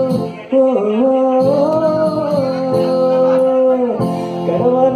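A man singing a Telugu song live over instrumental accompaniment, amplified through a PA, holding long notes that bend slowly in pitch, with a brief break between phrases about half a second in.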